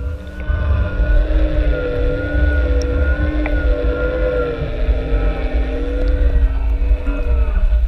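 Underwater recording of a motor's steady, slightly wavering whine in several tones over a heavy low rumble of water rushing past the camera housing as the rig is hauled up. The whine stops shortly before the end, while the rumble goes on.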